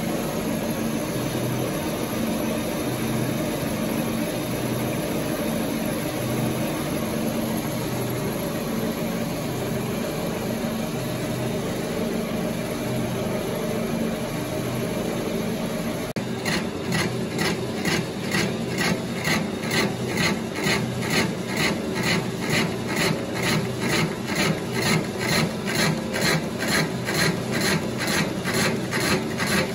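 Colchester Chipmaster lathe running while its tool cuts a spinning cast iron flywheel: a steady mechanical running noise with a rasping cut. About halfway through the sound changes to an even, rapid pulsing that runs on.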